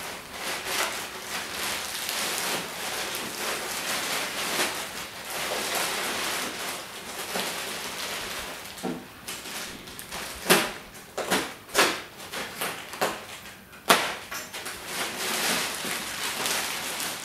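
Clear plastic packaging wrapped around a comforter crinkling and rustling as hands tear it open and pull it off, with several sharp, louder crackles past the middle.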